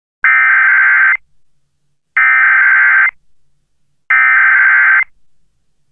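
Emergency Alert System SAME header: three identical bursts of warbling digital data tones, each just under a second long and about two seconds apart.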